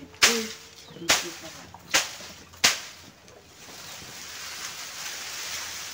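A stick beating a heap of dried bean plants to thresh out the beans: four sharp whacks a little under a second apart, then dry stalks and pods rustling as the heap is handled.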